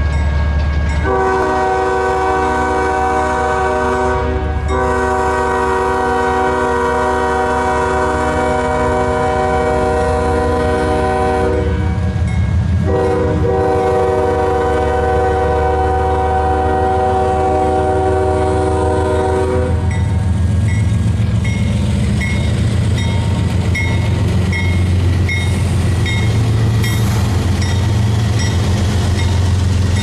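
Air horn of an approaching GE Evolution-series diesel locomotive sounding three long chord blasts, the last ending about twenty seconds in. The low rumble of the locomotive engines then grows as the train draws near, with a high ding repeating about every three-quarters of a second.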